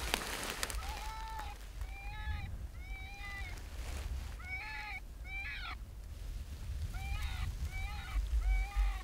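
Rabbit distress sound played through an electronic predator call: a string of short, high, wavering cries, each rising and then falling, about one a second with a brief pause about six seconds in.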